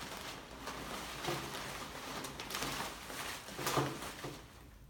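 Hand-turned raffle drum spinning, the paper tickets inside tumbling and rustling with a few louder knocks; it dies away near the end.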